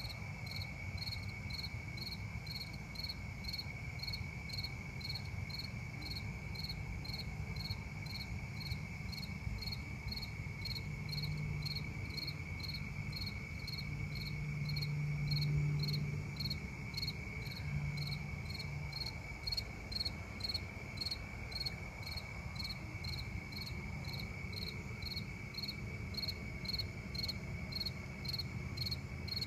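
Night insects calling: a steady high trill under a higher chirp that repeats evenly about twice a second, with a low rumble beneath.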